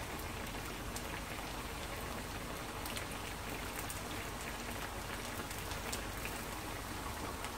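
Potato patties (tortitas de papa) frying in shallow oil in a skillet: a steady sizzle with a few faint pops.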